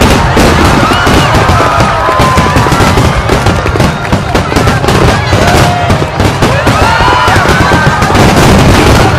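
A large fireworks display at full barrage: many aerial shells bursting at once in a dense, unbroken run of rapid bangs and crackling.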